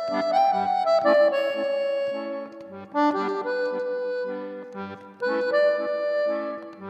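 Background music: a melody of held notes over sustained chords, pausing briefly between phrases.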